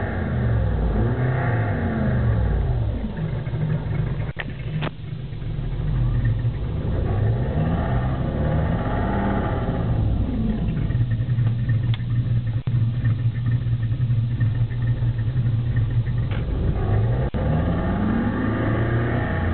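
V8 engine in a Skoda Octavia, heard from inside the cabin while driving at low speed. Its pitch rises and falls several times as the throttle is opened and eased, then holds steady for a few seconds in the middle. A few short sharp clicks are heard.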